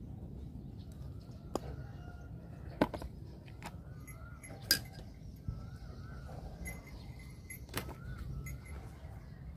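Scattered sharp knocks and clicks as large striped catfish are cut and handled on a round wooden chopping board, the loudest knock about halfway through. Short bird chirps repeat in the background over a low steady outdoor rumble.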